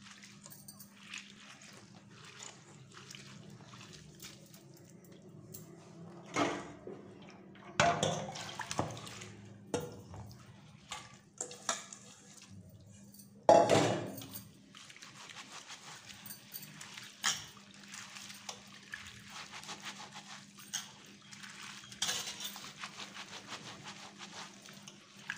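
Soaked split urad dal being rubbed and swished by hand in a steel bowl of water, with splashing and light clinks against the bowl. A louder burst of pouring water a little past halfway as the wash water is tipped from one bowl into another.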